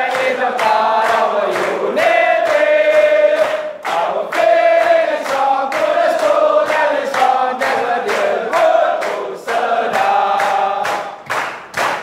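A large group of men singing together in unison, clapping their hands in time with the song, about two claps a second.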